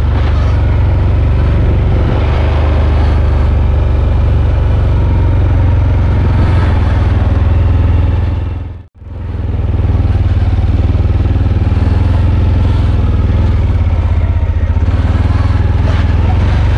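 Four-wheeler ATV engine running steadily under way, with a loud, even engine note. The sound drops out briefly about halfway through and then resumes.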